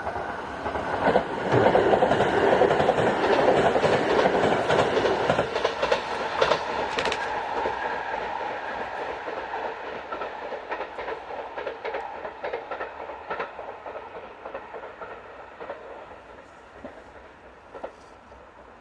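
A train passing at speed on an electrified main line, its wheels clattering over the rail joints. It gets loud about a second and a half in, stays loud for a few seconds, then fades slowly as it moves away.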